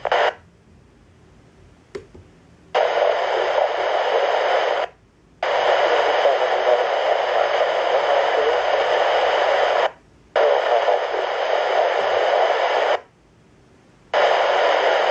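Handheld radio scanner's speaker giving out static hiss with no voice in four stretches of a few seconds each. Each one switches on and off sharply, with a quiet gap between, and a short click comes about two seconds in.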